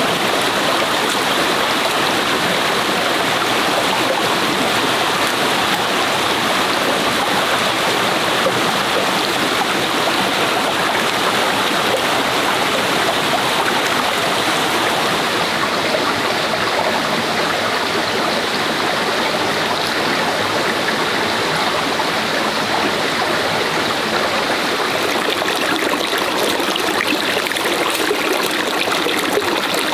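Forest stream flowing, a steady, even rush of water with no change in level.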